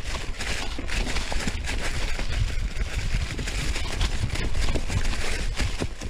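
Mountain bike descending a rocky, leaf-covered trail: tyres crunching over leaves and rocks, with frequent rattles and knocks from the bike and a steady low rumble of wind on the microphone.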